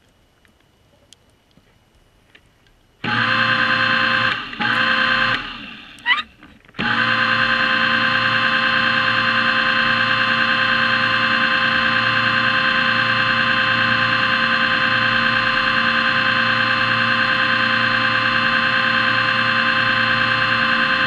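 Diver propulsion vehicle (underwater scooter) motor running with a steady whine. It starts about three seconds in, cuts out twice briefly with a rising whine as it spins back up, then runs on steadily.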